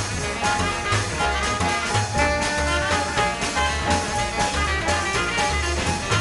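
Small swing jazz band playing an instrumental: trumpet and saxophone holding notes over a steady walking bass and drums.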